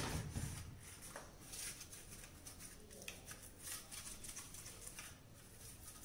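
A lemon half being rubbed and scrubbed against the plastic liner inside a refrigerator, with light clicks and knocks of plastic fridge parts being handled. The scrubbing is loudest at the start, then comes in short scattered scrapes.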